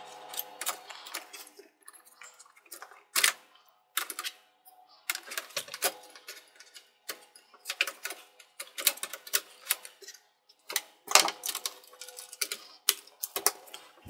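Sheet-metal hard drive cage being handled and seated back into an all-in-one PC's metal chassis: an irregular run of metallic clicks, taps and rattles, with a few sharper knocks.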